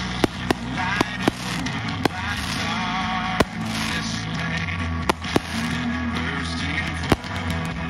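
Fireworks bursting in a string of sharp, irregularly spaced bangs, about one or two a second, the loudest about three and a half seconds in, over music playing steadily.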